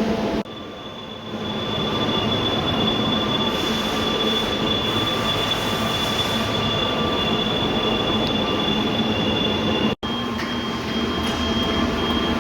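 Loud, steady running of machine-shop machinery: a broad rush with a high, steady whine. It is briefly quieter just after the start and cuts out for an instant near the end.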